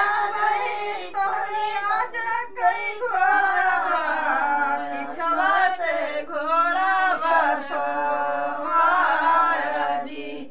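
A small group of women singing a North Indian wedding folk song (vivah geet) together, unaccompanied, in long held and bending melodic lines.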